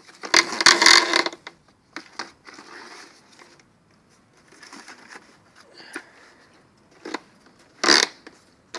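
Corrugated plastic vacuum-cleaner hose rubbing, scraping and knocking against the inside of a plastic bucket as it is coiled into a spiral. There is a loud rasp about a second long near the start, quieter scratching after it, and a short loud scrape near the end.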